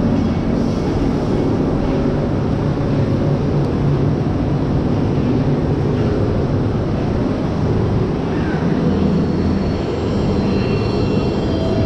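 Cobra's Curse spinning roller coaster car running along its track: a loud, steady rumble that holds level throughout.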